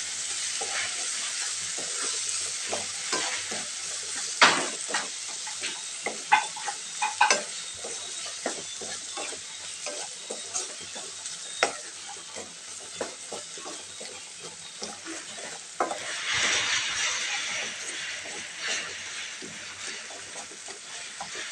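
Onion-tomato masala with spices sizzling as it fries in oil in a kadhai while a wooden spatula stirs and scrapes it, with frequent sharp knocks of the spatula against the pan, the loudest in the first half. The sizzle swells for a couple of seconds about sixteen seconds in.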